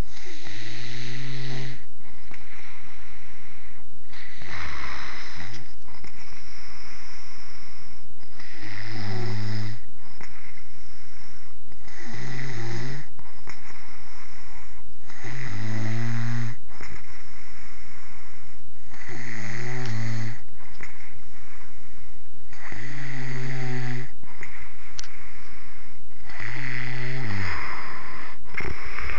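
A sleeping man snoring loudly and regularly, about eight snores, one every three to four seconds, each a low buzzing breath.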